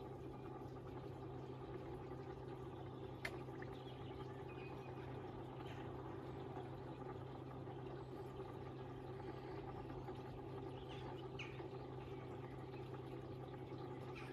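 Steady outdoor garden-pond ambience: an even low hum under a soft hiss, with a few faint bird chirps now and then and one short sharp click about three seconds in.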